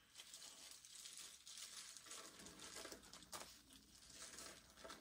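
Faint rustling and crinkling of small plastic zip-lock bait bags being handled, with a light tap about three seconds in.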